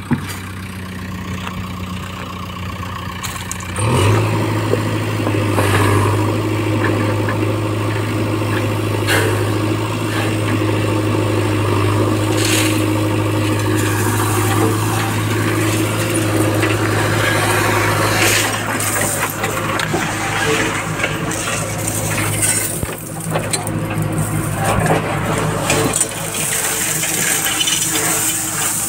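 JCB backhoe loader's diesel engine running under load, revving up about four seconds in and holding there. Scattered clatter of crushed stone rides on top.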